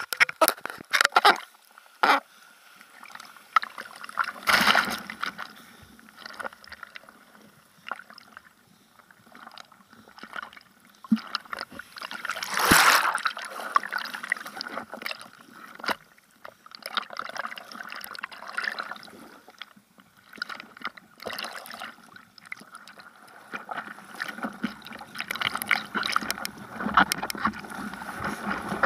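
Seawater splashing and sloshing around a bodyboard and the board-mounted camera, in irregular splashes, with one louder splash about five seconds in and another about halfway through.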